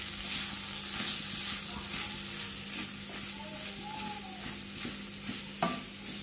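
A wooden spatula stirs and scrapes beef botti (tripe) fry around a metal pan while it sizzles gently over the heat, with one sharp knock of the spatula near the end.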